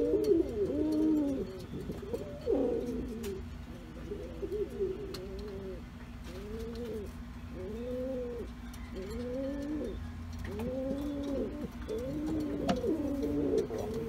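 Buchón pouter pigeons cooing: a steady run of rising-and-falling coos, several birds overlapping near the start and again near the end, over a faint steady hum.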